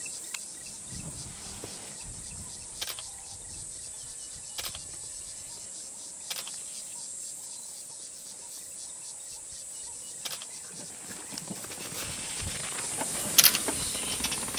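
Steady high-pitched insect chirring in the bush, with a few short clicks. In the last couple of seconds the noise rises with two loud knocks as a safari vehicle moves off after the cheetahs.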